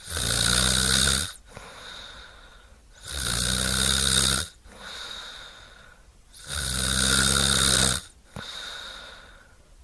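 A person snoring: three loud snores, each about a second and a half long and about three seconds apart, with quieter breaths between them.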